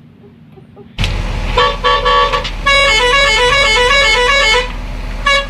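A multi-tone musical horn in the Indonesian 'telolet' style plays a quick tune of short stepped notes. It starts about a second in after near quiet, runs through a fast run of alternating notes in the middle, and ends with a few short toots.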